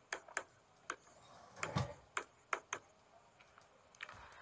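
Pen tapping and clicking on a writing board as a heading is written and underlined: a string of sharp, irregular clicks through the first three seconds, with a duller knock a little under two seconds in.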